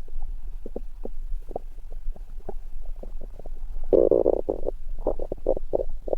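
Human stomach growling: a run of short gurgles, with a longer, louder rumble about four seconds in, followed by a few more quick gurgles.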